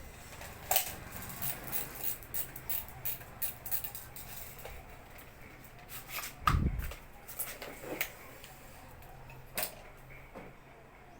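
Hands handling packaging and a small hard item during an unboxing: a run of light clicks and taps, about three a second at first, a louder thump about two-thirds of the way through, then a few scattered taps.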